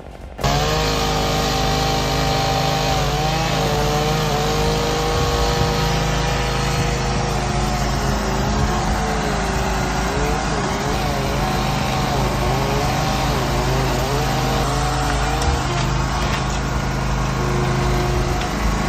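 Chainsaw running under load, its pitch wavering as it cuts, over a steady low engine hum. It starts abruptly just after the start and cuts off at the end.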